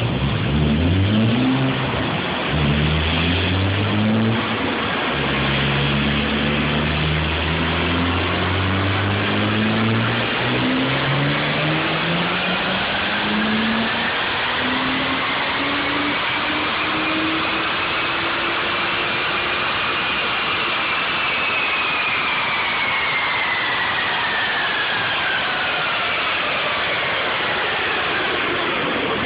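High-powered car engine on a full-throttle pull, its revs climbing several times with drops between, then a high whine that rises and falls in pitch as the run winds down. The car is running with a failing fuel pump.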